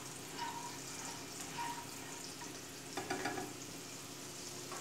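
Butter and a little olive oil sizzling steadily in a frying pan, heated until foaming and just starting to brown; a short cluster of light clicks about three seconds in.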